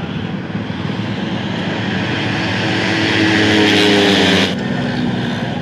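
Motorcycle engines running, one climbing in pitch and growing louder before the sound cuts off abruptly about four and a half seconds in.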